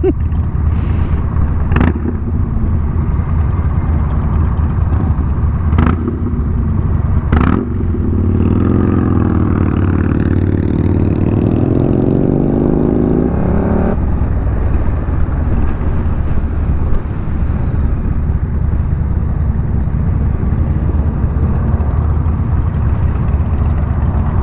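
Honda Rebel 1100 DCT's parallel-twin engine running steadily under way. About eight seconds in its note climbs for several seconds, then breaks off suddenly.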